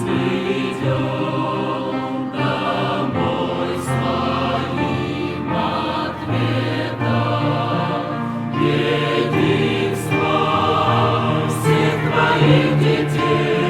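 Choir singing a hymn in held chords that change every second or two.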